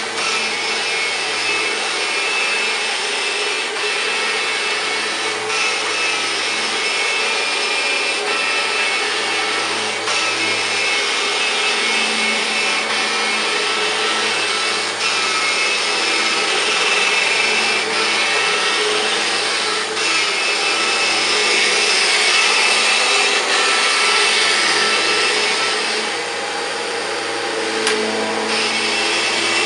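Kirby G5 upright vacuum cleaner running steadily on carpet, a constant motor whine over rushing air. It is pushed back and forth, and its level rises and dips a little with the strokes.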